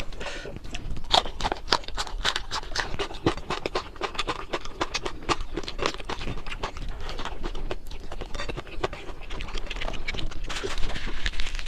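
A person eating close to the microphone: wet chewing and lip smacking with many quick, irregular crunchy clicks, as of crispy fried fish being chewed.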